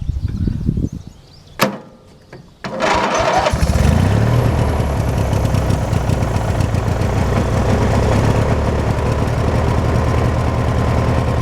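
Hechinger (MTD-built) riding lawn tractor's small engine cranking and catching about three seconds in, then running steadily with an even fast beat.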